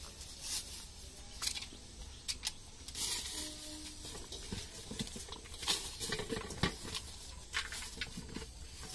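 Scattered light clicks and crackly rustles of hand work at a street-food stall: boiled potatoes being peeled by hand and a thin plastic bag being handled.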